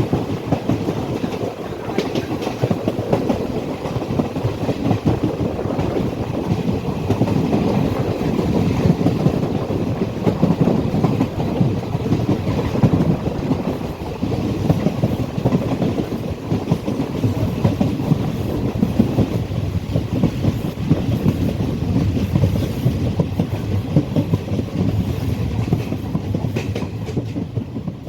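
Passenger train running on the rails, its wheels clattering steadily over the track, the sound dying away near the end.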